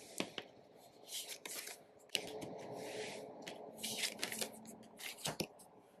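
Tarot cards being turned over and laid down on a wooden table: soft sliding swishes and a few sharp card snaps.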